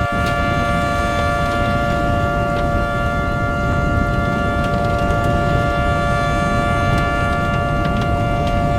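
Outdoor warning siren of the tornado-siren kind sounding a steady two-tone chord, held at constant pitch without rising or falling. A rough low rumble runs underneath.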